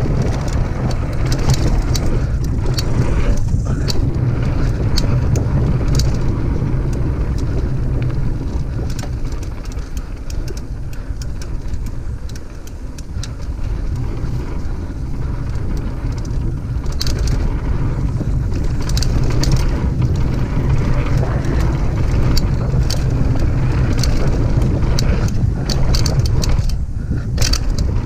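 Mountain bike running fast down a dirt trail: wind rushing over the microphone as a steady low rumble, with tyres rolling on packed dirt and scattered sharp clicks and rattles from the bike and loose stones.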